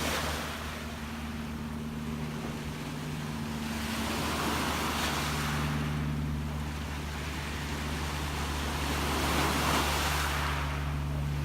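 Gentle sea waves washing in and drawing back, the rush swelling at the start, again about five seconds in and once more near the end, over a steady low hum.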